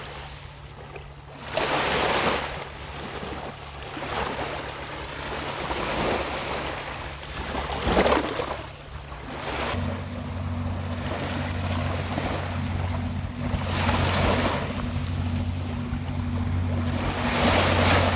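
Small waves washing up on a sandy beach, surging every few seconds, with wind on the microphone and a steady low hum underneath.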